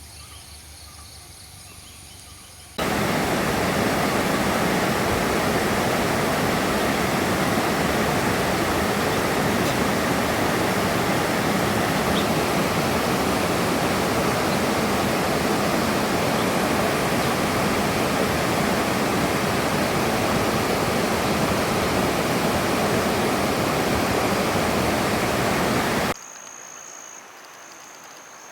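Steady roar of rushing water, loud and even, that cuts in suddenly about three seconds in and cuts off just as suddenly near the end, leaving quieter forest ambience with a high steady insect trill.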